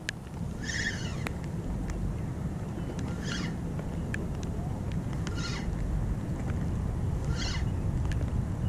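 Spinning reel being cranked in the rain, under a steady low rumble. A short squeak repeats about every two seconds, and raindrops tick now and then on the camera.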